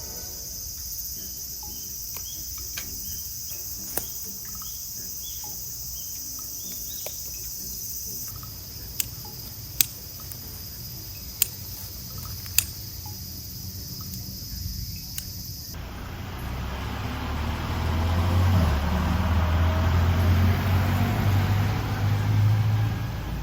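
Steady high-pitched insect chorus, broken by a few sharp clicks. About two-thirds of the way through, the insects drop out and a louder low rushing rumble swells up and takes over.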